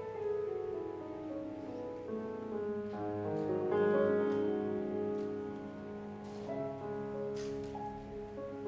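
Improvised piano music: a slow descending line of notes in the first two seconds, then held chords.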